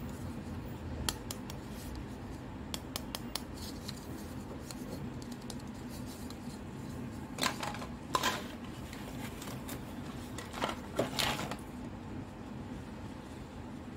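Hard plastic toy fruit pieces handled: a few light clicks and taps, then short, louder scraping knocks about halfway through and again a few seconds later, over a low steady hum.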